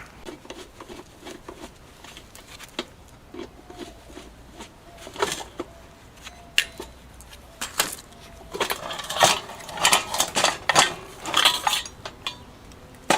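Small metal objects clinking and knocking as they are handled, a few scattered clicks at first and busier clatter in the second half.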